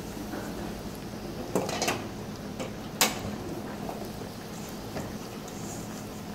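Breaded eggplant pieces deep-frying in a pot of hot oil, a steady sizzle throughout. A few sharp clinks of utensils against the pot come about a second and a half in and again at about three seconds, the loudest at three seconds.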